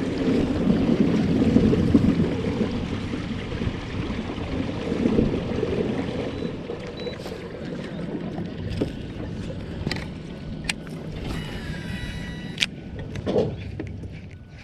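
Boat on open water: a steady rush of water and wind, loudest in the first few seconds and easing off, with scattered small clicks and knocks.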